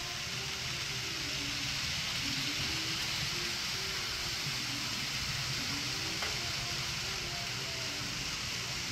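B-Train Shorty N-scale model trains running on layout track: a steady whirring hiss of wheels and small motors that does not change.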